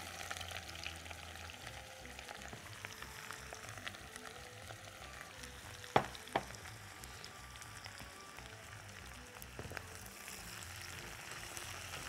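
Sliced onions and garlic sizzling gently in hot ghee in a pot while being stirred with a spatula. Two sharp knocks about halfway through.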